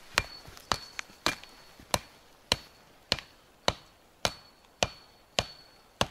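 A wooden stake being hammered into the ground with a wooden-handled striker: a steady run of about a dozen sharp knocks, roughly two a second, some with a brief high ring after the blow.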